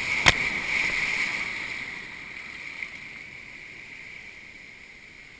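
Ocean surf washing around in the shallows, a rush of water that dies away over the next few seconds, with one sharp knock near the start.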